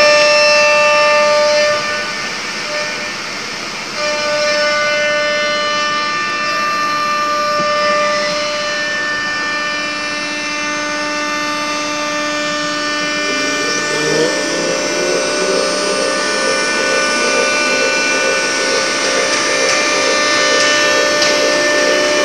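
CNC wood router running: a steady high whine from the spindle, with several held tones that shift every few seconds as the axis motors move. About fourteen seconds in, a wavering tone joins.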